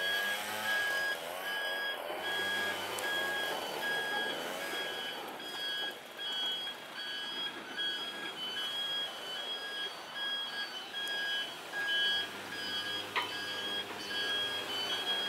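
Railway level-crossing warning signal beeping in an even, steady repeating rhythm, with vehicle and train noise running underneath.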